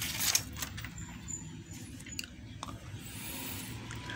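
A sheet of paper rustling as it is handled and laid flat, loudest in the first half second, followed by a few light taps, over a low steady hum.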